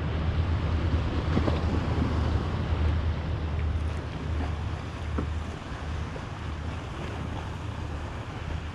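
Steady wind noise rumbling on the microphone over water lapping, with a few faint splashes from a kayak paddle.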